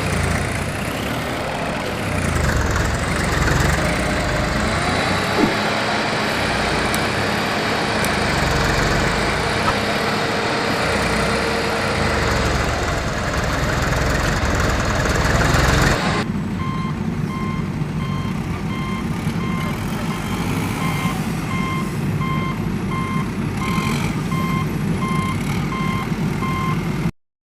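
Heavy vehicle engine running with rising and falling pitch. About sixteen seconds in it cuts to a lower engine hum under a reversing alarm beeping about once a second.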